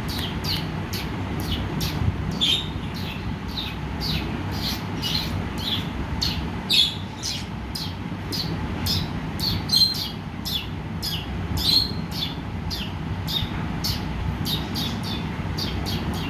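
Young budgerigar chirping in a rapid, steady series of short high calls, about three a second, over a steady low rumble.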